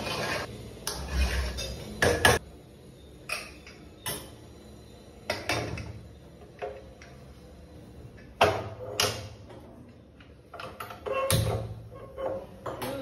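Metal cookware being handled: a spoon knocking and scraping in an aluminium pressure cooker, then the cooker's lid being fitted and locked shut, and a small pan moved on the gas stove. These come as separate clinks and knocks, with a loud one a little past two seconds in and another about eight seconds in.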